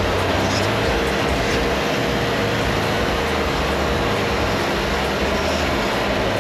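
Steady vehicle rumble and running noise, an engine with its low drone and a wash of mechanical noise, unbroken and even in level.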